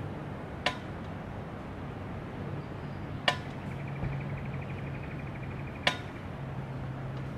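Playground swing's metal chain fittings clinking once with each swing, four sharp metallic clinks about two and a half seconds apart, each ringing briefly. A faint bird trill comes in the middle, over a low steady hum.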